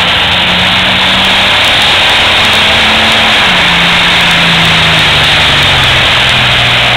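Very loud pulling-tractor engine running flat out under load as it drags the weight sled down the track. Its note climbs a little, then sinks steadily over the second half as the engine is pulled down by the load.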